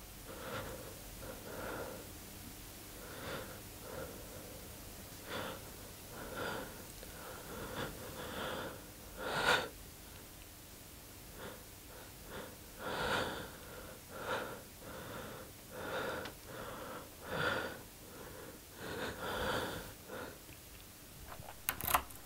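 Short breathy sounds repeating irregularly, about one a second, like a person breathing out or sniffing. A few sharp clicks of a door handle come near the end.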